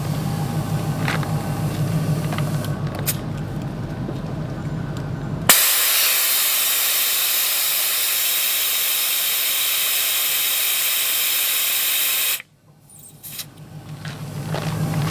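Air rushing out of a tire valve as the tire is aired down for off-road driving: a loud, even hiss that starts suddenly about five and a half seconds in and cuts off sharply about seven seconds later. Before it, a vehicle engine idles with a low steady hum, which comes back faintly near the end.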